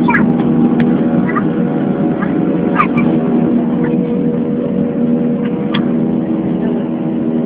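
Jet airliner's turbofan engines running at take-off thrust, heard from inside the cabin during the take-off run: a loud, steady roar with a constant hum. A few short clicks and rattles sound over it.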